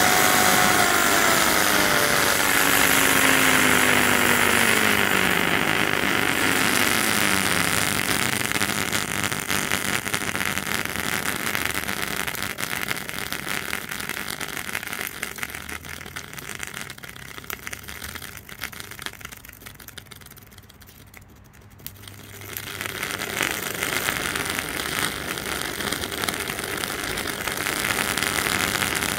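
Over-volted brushed blender motor running while its windings burn, a whine over a hiss of sparking at the commutator. The whine falls in pitch over the first seven seconds or so as the motor slows, then the sound fades, and the hissing comes back about 23 seconds in.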